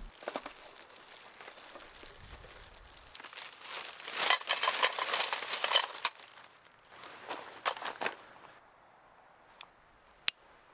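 Crinkling and rustling of a foil tray and plastic gloves as a raw chicken is handled, then lumps of charcoal clattering against each other in a metal brazier. A single sharp click near the end from a torch lighter.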